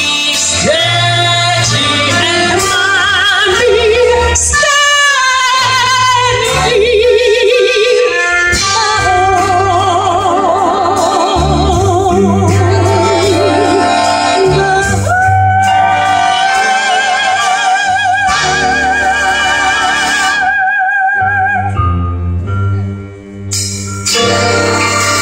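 A female soprano singing in operatic style with a live orchestra: quick runs, then long high notes held with wide vibrato. Near the end the music drops out for a moment before the orchestra comes back in.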